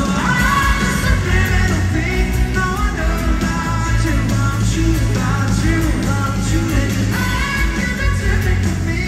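Live pop-rock concert music played loud through the venue's sound system: a full band with singing.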